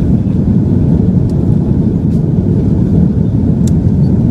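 Loud, steady low rumble of an airliner's engines and airflow heard inside the cabin during the landing.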